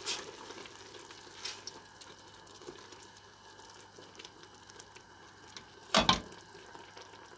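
A wooden spoon stirs finely chopped vegetables and tomato paste simmering in a stainless steel stockpot, over the pot's low, steady sizzle. About six seconds in come two sharp knocks as the spoon is struck against the pot.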